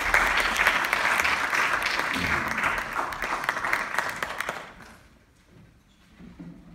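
Audience applause, dense clapping that dies away after about four and a half seconds. Near the end a concert harp begins with low notes.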